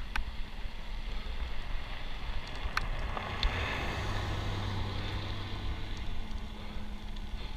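Wind buffeting the microphone over bicycle tyre noise on a gravel road, with a few sharp ticks. About three seconds in, an SUV comes up alongside and pulls ahead, adding a low engine hum and louder road noise that fades after a few seconds.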